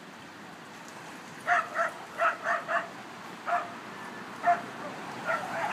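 A dog barking repeatedly: a quick run of barks about a second and a half in, then single barks every second or so.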